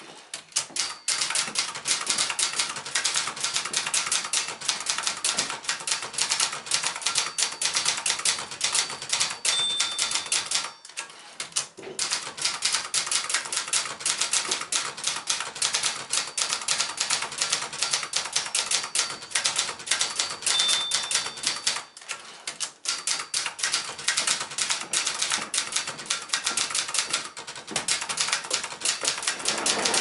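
1985 Brother Charger 11 ultraportable manual typewriter being typed on at a brisk, steady pace, with rapid key and typebar clacks. Twice the margin bell dings and the typing pauses briefly, for the carriage return at the end of a line.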